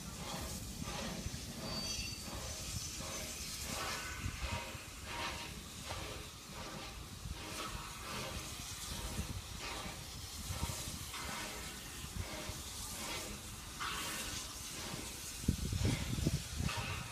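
Steam hissing from a standing Victorian Railways R class steam locomotive, a steady rushing hiss broken by uneven pulses, with a louder low rumble near the end.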